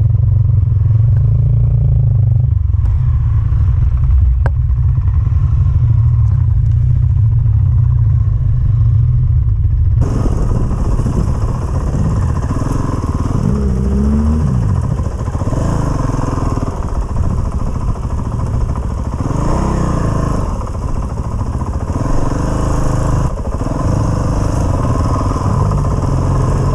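Honda CRF450RL's single-cylinder engine riding a trail. For the first ten seconds it is only a muffled low rumble; then the full sound comes through, the engine pitch rising and falling again and again as the throttle is opened and closed.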